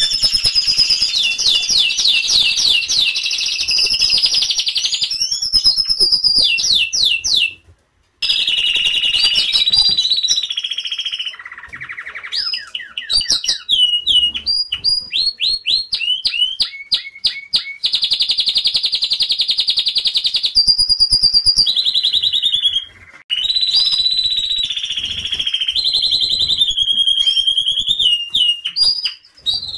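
Domestic canaries singing: long, fast trills of repeated notes and runs of quick sweeping chirps, with one short break about eight seconds in.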